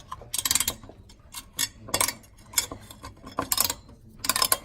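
Screwdriver turning the spring-loaded mounting screws of an AMD stock CPU cooler on a Ryzen motherboard. It makes short bursts of rapid ratchet-like clicking, about six times, as each screw is turned down.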